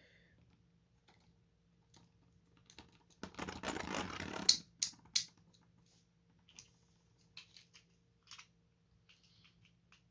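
Hard plastic Beyblade parts being handled: a brief rattle lasting about a second and a half, then two sharp clicks, then a few faint scattered clicks.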